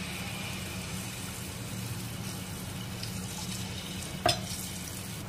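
Rice-flour malpua batter frying in hot oil in a deep pan: a steady sizzle, with one sharp click about four seconds in.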